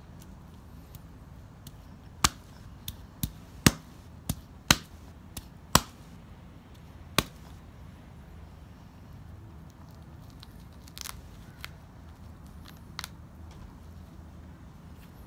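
Bare knuckles knocking on the trimmed husk of a young coconut: about nine sharp knocks in quick succession, followed later by a few fainter taps as husk fibres are picked and torn away.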